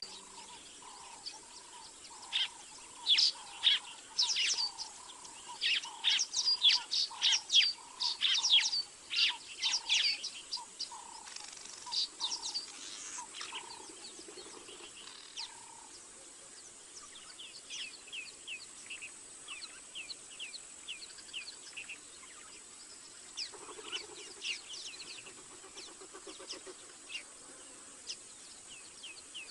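Birds calling: a quick series of short high chirps, loudest in the first ten seconds and thinning out after the middle, over a steady run of lower notes about twice a second that stops a little past halfway.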